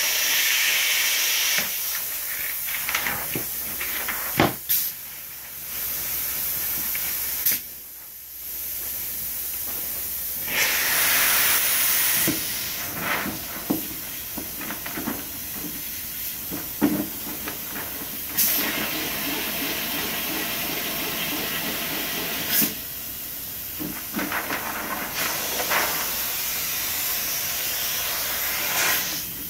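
Spray foam gun injecting foam insulation into an existing wall cavity: a hiss that comes in stretches, strongest at the start, again in the middle and near the end, with scattered clicks and knocks in between.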